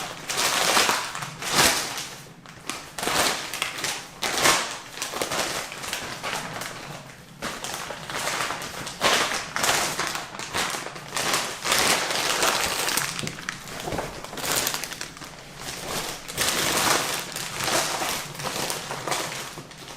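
Paper and plastic shoe packaging being handled: irregular bursts of rustling and crinkling, with light taps and thuds.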